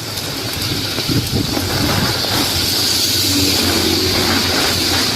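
A motor vehicle passing on the rain-soaked road: engine hum under a steady hiss of tyres on wet pavement, getting louder over the first couple of seconds and then holding.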